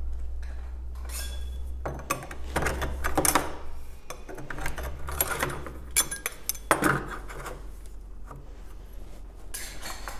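Small metal parts clinking and rattling in several irregular bunches as a sliding patio door's latch plate and its screws are handled, taken off and turned around. A steady low hum runs underneath.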